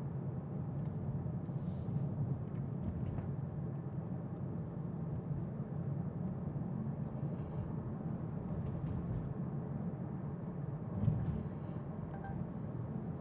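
Steady low road and tyre rumble heard inside an electric car's cabin while it drives, with a brief louder bump about eleven seconds in.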